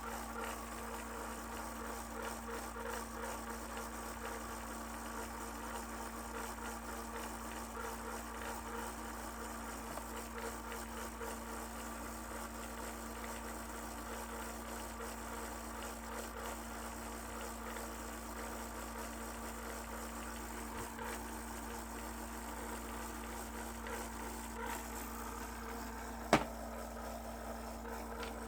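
Asus Zenbook laptop cooling fan running with a steady buzzing hum: the rattle of its worn left-side fan. A single sharp click comes near the end.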